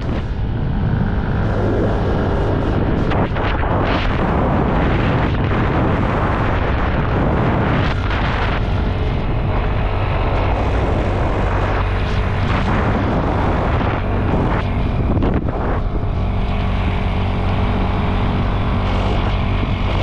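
An engine running steadily, its low hum held under a loud rush of wind on the microphone.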